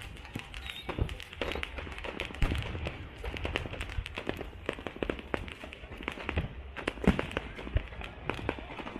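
Fireworks going off in a rapid, irregular string of sharp cracks and pops over the chatter of a large crowd; the loudest bang comes about seven seconds in.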